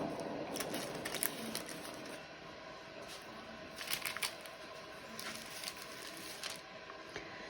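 Scattered light clicks and taps from a paint-covered canvas being handled and tipped, over a low steady noise that fades away in the first two seconds.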